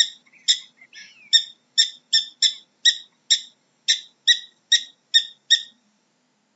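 Prairie dog giving a rapid series of about thirteen short, sharp, high-pitched chirping barks, roughly two to three a second, with a fainter rising call among them about a second in.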